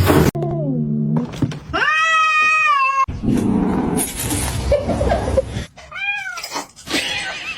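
Cats meowing and yowling in quick succession, with abrupt cuts between them. First comes a low, falling moan, then a long drawn-out yowl, then a short meow.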